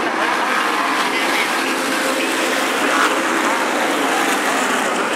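A pack of modified race cars running at speed around the oval, their engines blending into a steady, dense noise.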